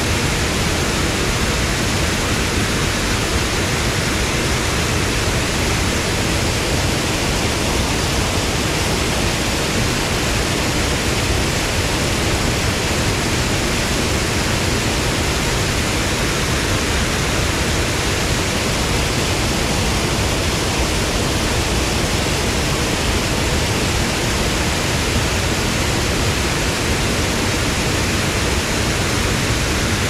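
Rushing water at a river's spring source: a loud, steady, unbroken rush.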